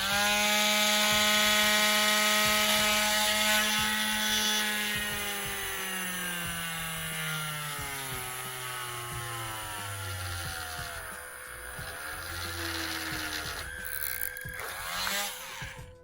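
Small electric drill boring a hole through a plastic action-figure ball peg. The motor whine holds steady for about five seconds, then drops gradually lower in pitch, wavers up and down, and stops just before the end.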